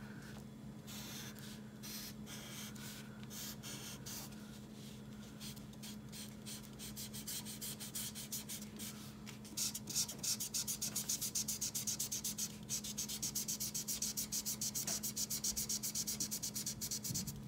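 Felt-tip marker colouring in on paper, its tip scratching in back-and-forth strokes. About halfway through the strokes turn fast and even, roughly five a second. A faint steady hum lies underneath.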